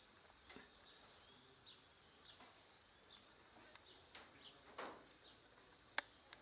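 Faint outdoor background with short high chirps scattered throughout, a few sharp clicks, and one louder click near the end.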